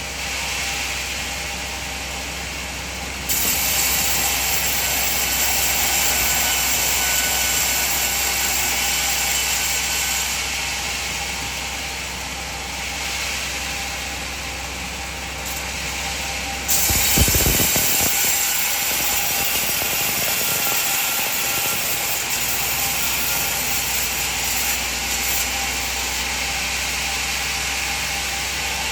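Band sawmill running as it processes coconut wood, a steady mechanical hiss that jumps in level abruptly a few times.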